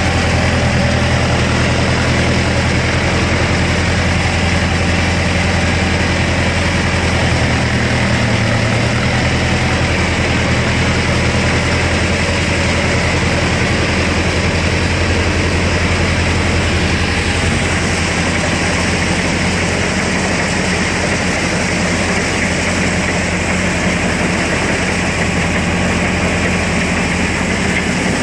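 Mahindra Arjun Novo 605 DI-i tractor's four-cylinder diesel engine running steadily, a loud, even low hum.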